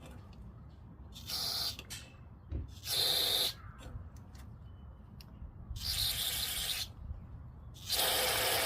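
Aerosol carburetor cleaner hissing out of its straw in four short bursts, the last one the longest. It is being sprayed up the emulsion tube of a Tecumseh float carburetor, with the bowl off, to flush out ethanol gunk.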